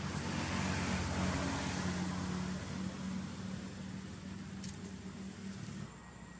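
A car driving past on the road: engine hum with tyre noise, loudest about a second in, then fading. It cuts off abruptly near the end.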